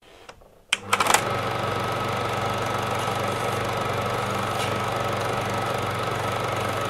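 A few sharp clicks about a second in, then a small motor running steadily with a low hum and a fast, even flutter.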